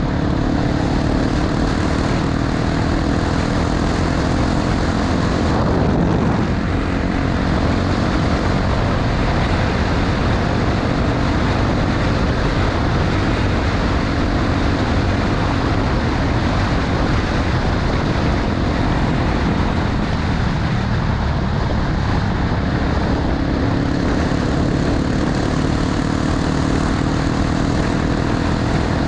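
Honda XR250 Tornado's single-cylinder four-stroke engine running at a steady cruising speed, under a constant rush of wind and road noise.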